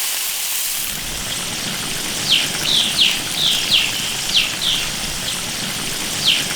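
Duck and beef tripe in an iron wok, with water just added to cover, cooking on with a steady bubbling hiss. From about two seconds in, a bird calls over it in repeated short falling notes, about two a second, twice in a run.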